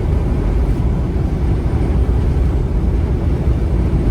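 Steady low rumble of a vehicle driving at highway speed in a strong wind: road noise and wind buffeting.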